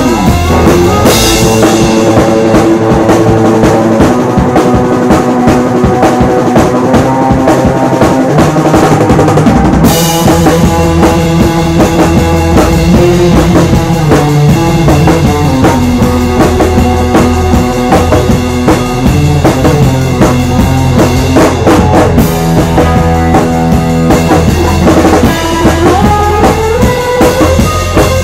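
Live rock band playing: a drum kit with kick drum and snare keeping the beat under electric guitar, electric bass and a Hammond organ holding chords.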